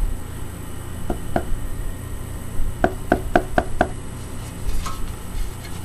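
Light knocks from a hand handling a car subwoofer: two taps about a second in, then five quick ones at about four a second, over low handling rumble.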